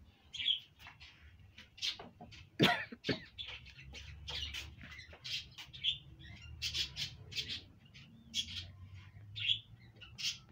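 Pallet-wood boards being handled and shifted by hand on a workbench, with two sharp wooden knocks about two and a half and three seconds in, amid many short high chirps throughout.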